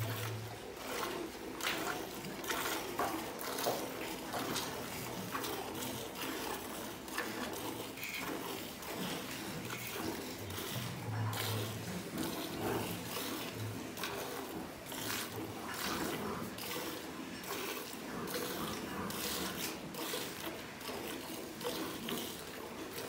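Cow being milked by hand: jets of milk squirting from the teats into a steel bucket of foamy milk, a quick run of repeated squirts as the hands work in turn.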